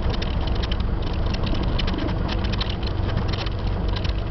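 Cessna 172's piston engine and propeller running at low taxi power: a steady low drone with a rapid ticking on top.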